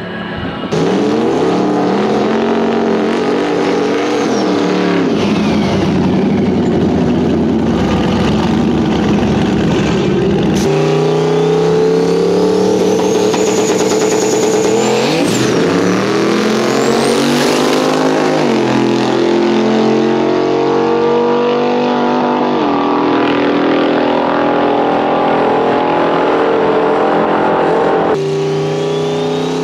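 Drag-racing cars accelerating hard down the strip at full throttle, the engine pitch climbing and dropping again and again with gear changes, with a few abrupt jumps from one run to the next.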